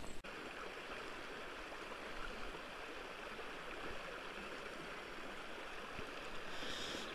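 Small creek flowing over a riffle: a steady, even rush of water.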